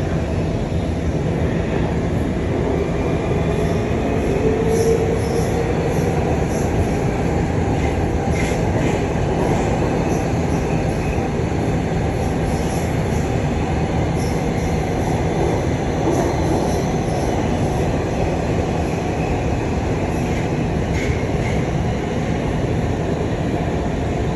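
Budapest M4 metro train, an Alstom Metropolis, running at speed through the tunnel, heard from inside the car: a steady rumble of wheels on rail, with a faint whine that rises briefly a few seconds in.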